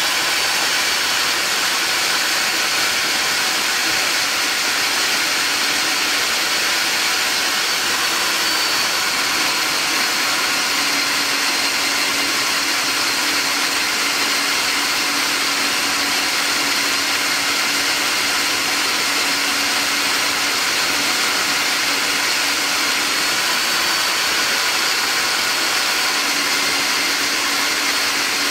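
Power drill running steadily under load, boring out the rivet that holds the front lower ball joint to the suspension arm of an MG F / MG TF.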